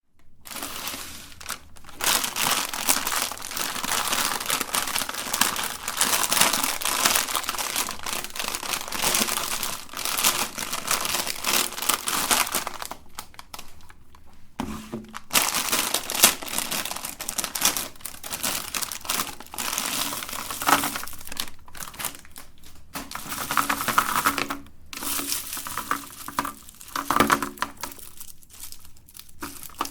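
Plastic candy packaging crinkling as it is handled, in long stretches broken by a few short pauses.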